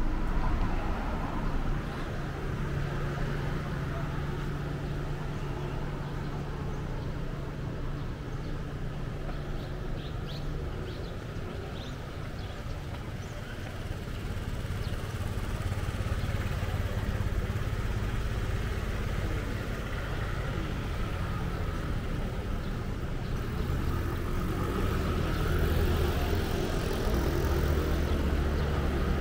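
Street traffic: vehicle engines running past on a city road, a continuous low hum that swells again near the end.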